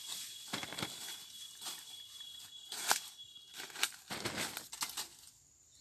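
Irregular rustling and crackling of dry leaf litter and hand-handling noise, with a faint steady high whine that fades out about three seconds in; the sound cuts to silence near the end.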